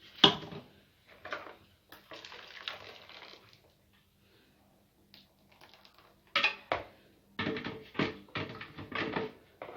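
Kitchen utensils knocking and clattering against a mixing bowl and dishes during cake-batter preparation: a sharp clink at the start, then scattered knocks and a quicker run of clinks in the second half.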